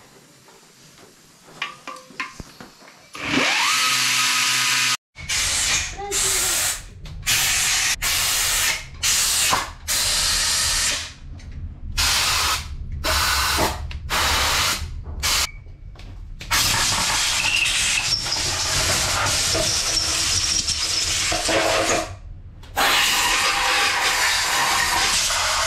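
Handheld power grinder relieving the bottom edges of a 2JZ block's cylinder walls to clear the connecting rods of a stroker kit. It starts about three seconds in and cuts in and out in a dozen short bursts, then runs longer near the end.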